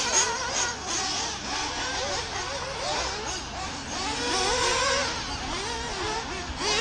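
Several 1/8-scale nitro RC buggy engines revving together, their high-pitched whines rising and falling over one another as the cars run on the track.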